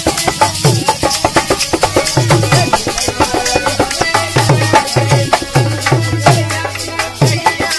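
Folk band music: a hand-played dholak drum beating a fast repeating rhythm, with harmonium chords held underneath and steady jingling metal percussion on every beat.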